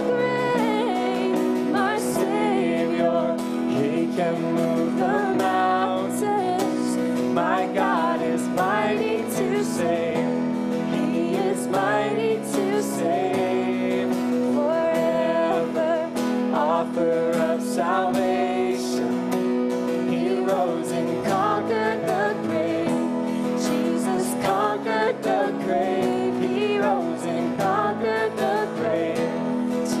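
Live worship song: piano and acoustic guitar accompanying singing, played steadily throughout.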